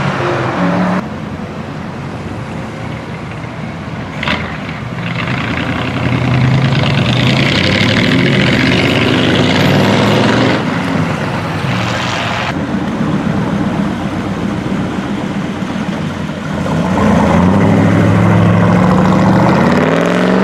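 Engines of several classic custom cars and hot rods passing in turn on a street, one after another, each running with a deep rumble and picking up revs with a rising pitch as it pulls away. The sound changes abruptly a few times where one car gives way to the next.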